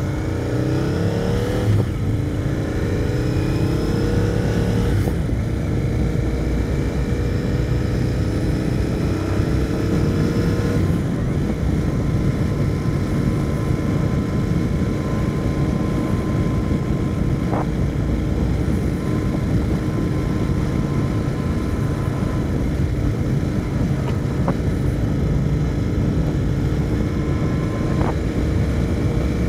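Royal Enfield Continental GT 650's parallel-twin engine accelerating, its pitch climbing and then dropping at upshifts about two and five seconds in, before settling to a steady cruise. Wind noise from riding sits underneath.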